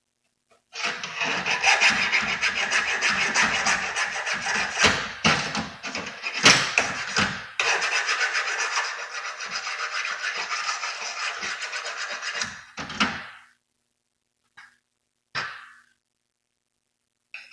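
Flat hand file rasping back and forth on the steel rails of a chainsaw bar to dress off wear, with a few sharp knocks of metal on metal among the strokes. The filing stops about three-quarters of the way through.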